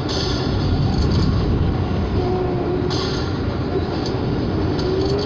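Subway train running at speed on the track: a steady, loud low rumble of wheels on rail, broken every second or so by brief hissy crackles, with a faint thin squeal now and then.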